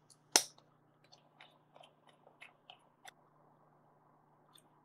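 Plastic pry tool working a trim strip off a Nikon Coolpix AW110 camera body: one sharp click, then a string of small irregular clicks and crackles as the strip lifts.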